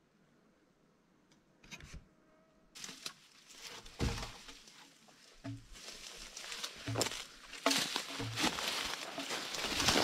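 Footsteps crunching through dry twigs and forest litter, a low thud about every second and a half, with crackling between them. It starts after nearly silent first few seconds.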